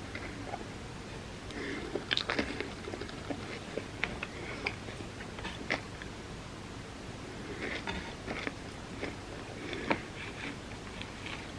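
A person biting and chewing a soft dessert lasagna of tortillas layered with chocolate and peanut butter: irregular wet chewing and mouth sounds with scattered sharp clicks and smacks.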